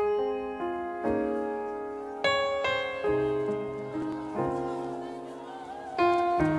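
Piano music: notes and chords struck one after another, each ringing down before the next.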